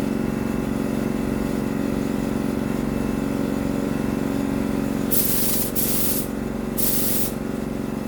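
Air-fed paint spray gun at about 28 psi giving three short blasts of spray hiss about five, six and seven seconds in: test sprays to check the fan pattern. A steady motor hum runs underneath throughout.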